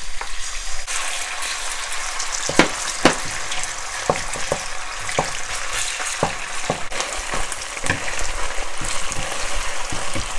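Thinly sliced beef shallow-frying in hot oil in a nonstick wok: a steady sizzle that grows stronger about a second in. From about two and a half seconds in, it is broken by frequent sharp knocks of wooden spatulas against the pan as the meat is stirred.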